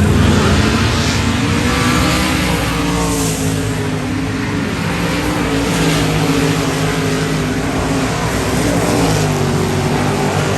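Several dirt modified race cars' V8 engines running hard together, with their pitches rising and falling.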